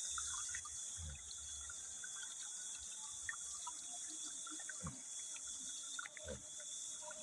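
Steady trickling and flowing of shallow river water, with faint scattered small splashes and ticks.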